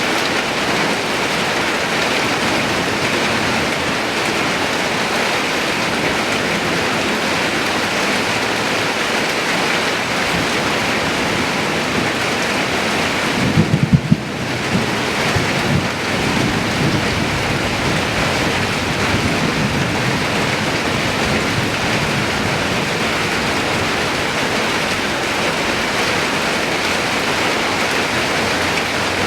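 Steady rain falling. About halfway through, a brief low rumble with a few sharp peaks rises above the rain.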